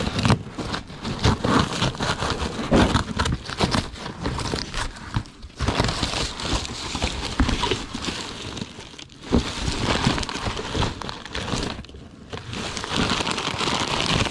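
Hands rummaging through old stored belongings: paper and plastic crinkling and rustling, with irregular knocks and clatter of objects being picked up and set down.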